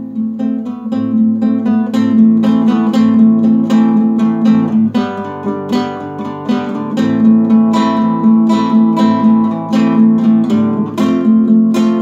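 Nylon-string classical guitar strummed and picked in a steady rhythm, an instrumental passage of a song with no singing.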